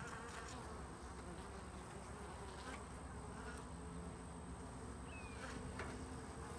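Honeybees buzzing faintly as they fly in and out of the hive entrance, their pitch wavering as they pass. Foragers are carrying pollen in, a sign that the colony is rearing brood.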